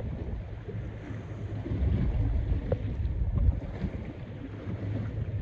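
Wind gusting on the microphone, a low uneven rumble, over the wash of open-ocean waves around a drifting boat.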